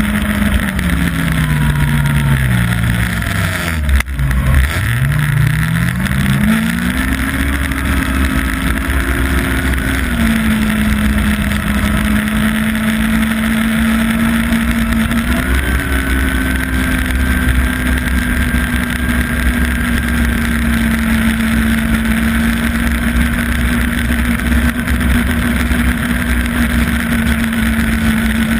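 Yamaha Apex snowmobile's four-stroke four-cylinder engine running at trail speed over a steady rushing hiss. Over the first few seconds its pitch falls steeply, with a knock at the low point about four seconds in. The pitch then climbs back over the next few seconds and holds steady for the rest of the time.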